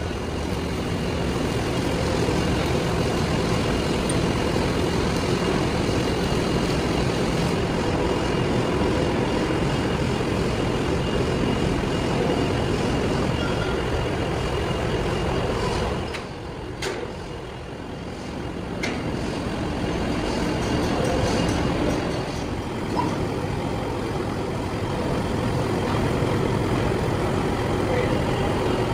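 Machine-shop machinery running steadily with a constant hum. The noise drops briefly about sixteen seconds in, with a couple of sharp clicks, then picks up again.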